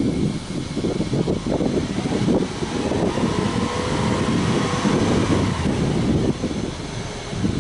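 Subaru Legacy Outback 2.5i's EJ25 flat-four exhaust running at idle, blipped once about three seconds in: the pitch climbs and sinks back to idle over about three seconds.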